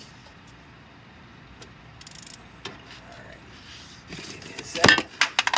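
A phone and hand tools falling and clattering: a few faint clicks, then about four seconds in a quick run of sharp metallic knocks and clinks, the loudest near the end.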